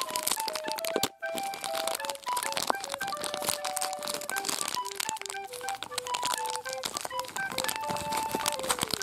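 Clear plastic blind bag crinkling as hands work a small toy figure out of it, over background music: a simple tune of short held notes.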